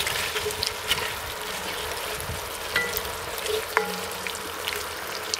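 Red wine and vegetables sizzling in a hot cast-iron Dutch oven: a steady hiss with scattered sharp pops, as the wine deglazes the pan and reduces.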